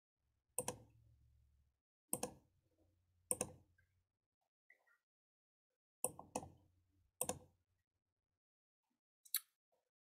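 Computer mouse clicks, about seven single sharp clicks at irregular intervals, two of them in quick succession a little past halfway, faint.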